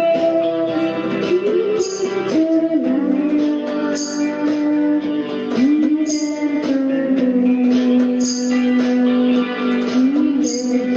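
Music with guitar, carrying a held melody line that slides between notes over the chords, and a short bright accent about every two seconds.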